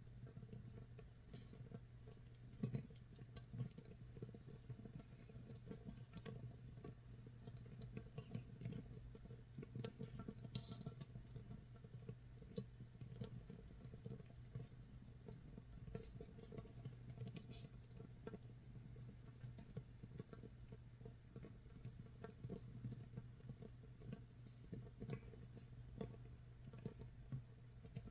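Makgeolli starter mash fermenting in an earthenware jar, about 24 hours in: a faint, irregular crackle and fizz of small bursting bubbles that sounds like rain or crackling firewood, over a steady low hum.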